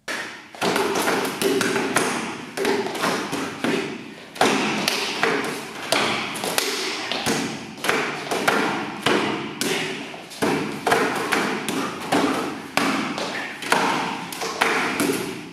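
Wooden kung-fu training dummy (mook jong) struck rapidly by hands and forearms: a quick, uneven run of hard wooden knocks and thuds, two or three a second, as arms and trunk are hit in sequence.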